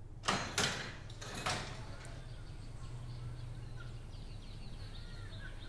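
Wooden double door with metal latches being opened: three sharp clacks in the first second and a half as the door is unlatched and pushed open.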